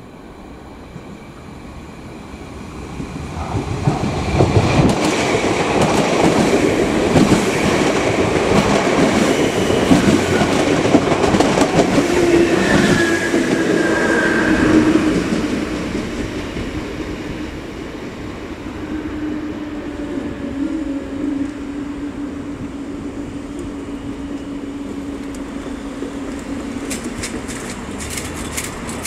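Irish Rail 8100 class DART electric multiple unit passing over a level crossing, its wheels clattering over the rail joints. The sound builds from about three seconds in, is loudest for the next ten seconds or so, then dies down to a lower, steady level.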